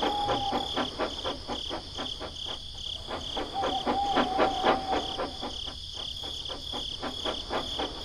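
Crickets chirping in a fast, even pulse of about four to five chirps a second over a steady high shrill. A faint held tone sounds twice: briefly at the start and for about two seconds in the middle.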